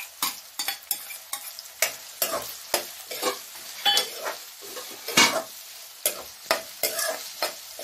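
Chopped onion, potato and capsicum being stirred in a kadhai over hot oil: irregular scraping strokes against the pan, about two a second, over a steady sizzle.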